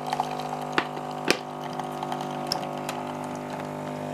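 Master Coffee automatic espresso machine's pump humming steadily as coffee is brewed and pours into the cup, with a couple of light clicks about a second in.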